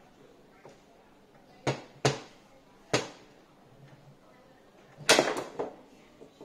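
Foosball being played on a JX 125 table: the ball is struck by the rod figures and knocks against the table. There are three sharp knocks in the first half, then a quick flurry of louder knocks about five seconds in.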